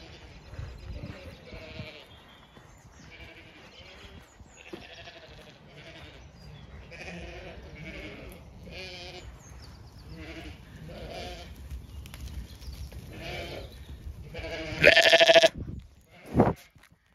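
A flock of Zwartbles sheep bleating, with single calls coming every second or two. About fifteen seconds in, one sheep bleats loudly right at the microphone.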